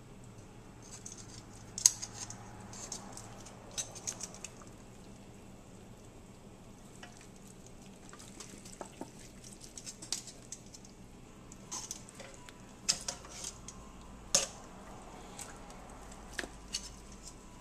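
Irregular clicks, clacks and light knocks of kitchen handling as cooked pork spare ribs are laid by hand into a disposable aluminium foil pan next to a slow cooker. The sharpest clack comes about two seconds in, with two more in the last third.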